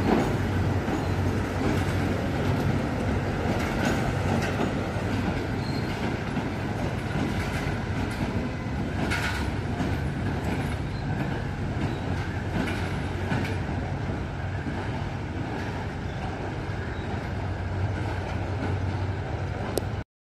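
A diesel-hauled passenger train rolling slowly away, its coach wheels giving occasional clacks over rail joints over a steady rumble and a low drone. The sound cuts off suddenly near the end.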